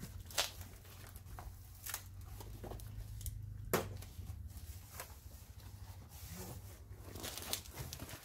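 Cardboard shipping box being torn open by hand: tape ripping, flaps pulled back and cardboard scraping and rustling, with a few sharp rips spread through.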